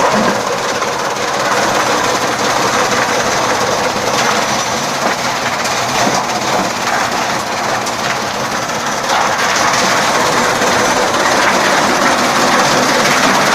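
Chaff cutter running steadily, a little louder from about nine seconds in.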